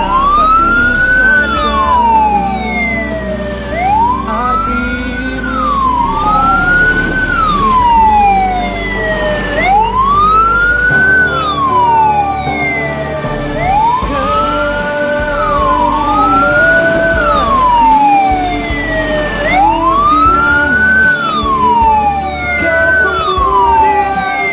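Vehicle siren wailing, its pitch rising for about a second and falling more slowly, over and over, sometimes starting a new rise before the fall has finished.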